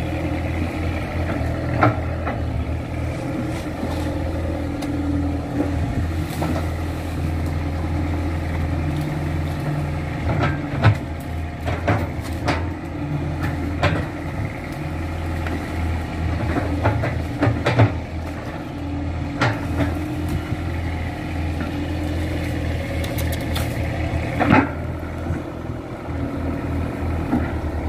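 Kato crawler excavator's diesel engine running steadily, with sharp knocks and clanks about a dozen times as the machine works across the bank.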